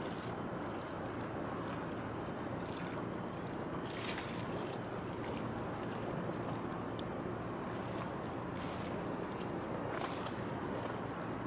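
Harbour water ambience: choppy water slapping and wind on the microphone, steady throughout, with a faint low hum beneath and a few brief splashes.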